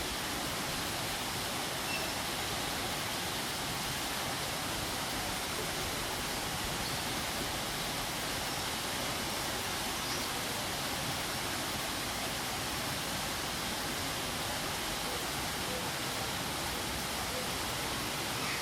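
Waterfall rushing steadily: an even, unchanging hiss of falling water.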